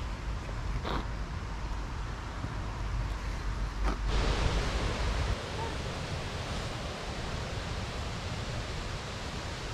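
Wind buffeting the camera microphone: a low rumble that drops away about five seconds in, over a steady outdoor hiss, with a couple of faint clicks.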